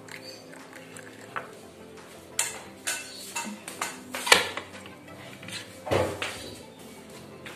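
Steel saucepan, steel tumblers and crockery clinking and knocking as they are handled and set down on a kitchen counter: a series of separate sharp clatters, the loudest about four seconds in and two more close together about six seconds in.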